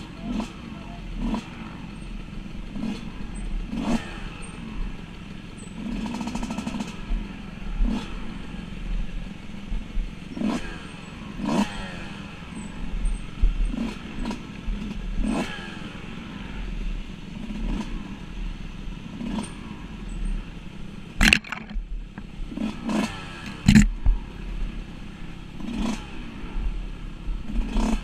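Dirt bike engine running and revving on a rough forest trail, with frequent sharp knocks and clatter as the bike jolts over bumps and ruts. The two loudest knocks come a little past three-quarters of the way through.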